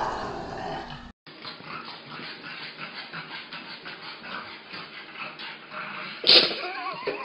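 A dog's short vocal sounds, with one loud sharp sound about six seconds in. An abrupt cut about a second in ends a louder sound from the previous clip.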